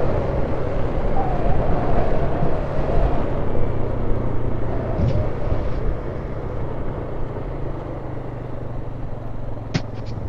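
Off-road vehicle engine running as it drives along a dirt trail, with jostling noise. It gets somewhat quieter about six seconds in, and a couple of sharp knocks come near the end.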